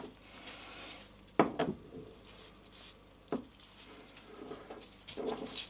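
Metal transaxle parts being fitted by hand: a few sharp clinks and knocks, two close together about a second and a half in and another a little after three seconds, with some light rubbing between them.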